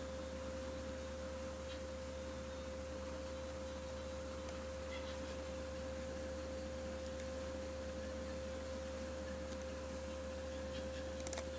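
A steady single-pitched electrical tone with a low hum beneath it and a faint hiss, and a sharp click near the end.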